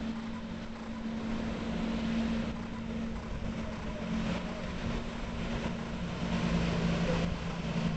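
Motorboat engine droning steadily at speed while towing a water skier, growing a little louder after about six seconds as it passes closest.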